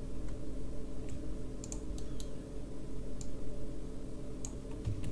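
Computer keyboard keystrokes and mouse clicks, about ten scattered irregular clicks, over a steady low electrical hum.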